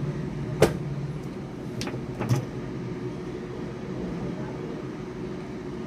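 Three short sharp clicks, one about half a second in and two close together near the two-second mark, over a steady low background hum.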